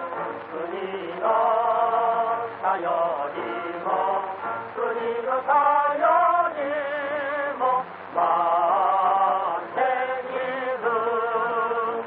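Film-score music of voices singing together in long held notes with a wavering vibrato, the notes changing every second or so. It comes from a muffled old film soundtrack.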